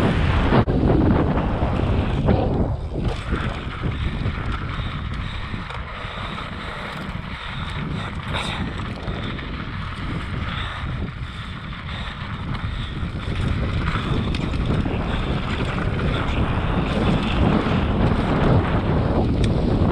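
Wind rushing over an action camera's microphone as a mountain bike descends a dry dirt trail, mixed with the tyres rolling and skidding over the dirt. The rush drops for several seconds in the middle and builds again toward the end.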